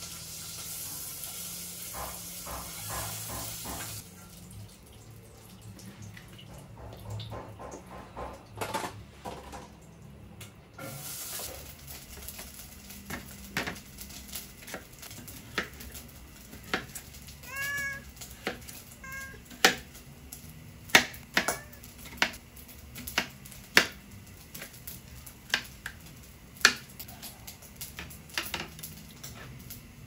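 Kitchen knife cutting a cucumber on a plastic cutting board: many sharp, irregular knocks, loudest in the second half. Tap water runs into the sink for the first few seconds, and a cat meows twice about midway.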